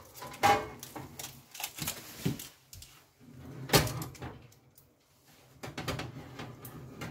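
Foil-lined metal roasting tray slid into an oven and set in place, with scraping and knocking of metal on metal. The loudest knock comes about four seconds in, and a few lighter knocks follow.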